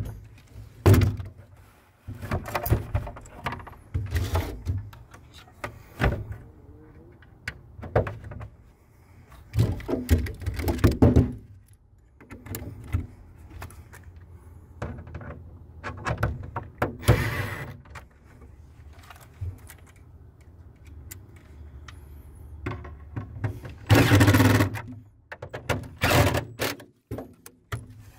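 Irregular knocks, clicks and rattles of a metal RV automatic transfer switch box being handled into place, with a few short runs of a cordless 12-volt impact driver driving its mounting screws; the loudest run, about a second long, comes near the end.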